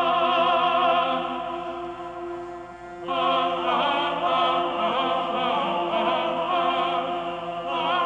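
Background music: classical singing, with held notes wavering in vibrato. The sound thins briefly, then a new phrase comes in about three seconds in.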